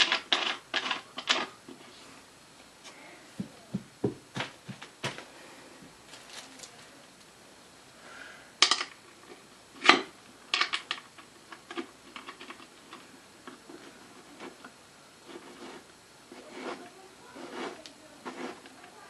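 Irregular metal clicks and light knocks as bolts and a metal bracket are handled and fitted while the backrest bar is bolted to the underside of an office chair seat. The sharpest knocks come about 9 and 10 seconds in.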